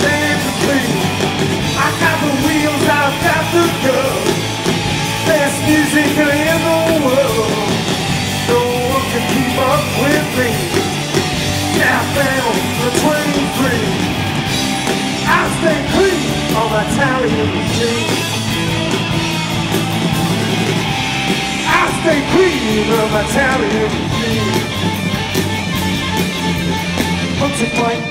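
Live garage rock band playing: electric guitars, bass guitar and a drum kit.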